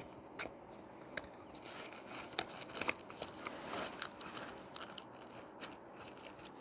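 Faint handling noise: a few light clicks and soft rustling as cardboard toy-car packaging and the bedspread fabric are moved about by hand.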